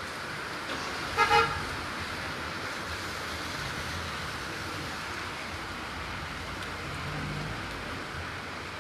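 Steady rain hiss, with a vehicle horn tooting twice in quick succession about a second in.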